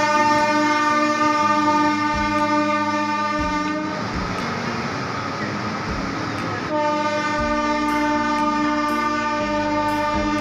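Locomotive horn of the departing Tejas Express sounding two long steady blasts. The first cuts off about four seconds in. After a gap filled with the rumble of the moving train, the second starts suddenly about two-thirds of the way through and carries on.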